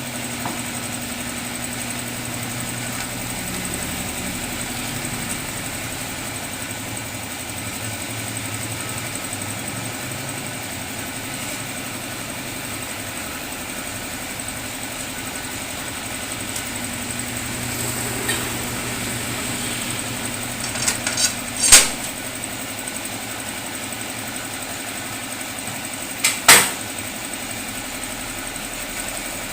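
A steady engine hum, broken by a short cluster of sharp knocks about three-quarters of the way in and one more loud knock a few seconds later.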